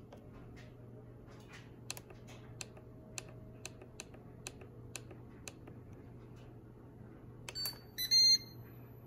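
Ninja Foodi pressure cooker control panel being set: about eight short clicks of the time button, roughly two a second, then a quick run of high electronic beeps near the end as the Start button is pressed. A steady low hum sits underneath.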